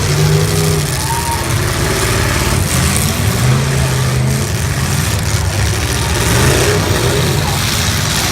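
Engines of full-size demolition derby cars running loud and revving, their pitch rising and falling as the drivers throttle up.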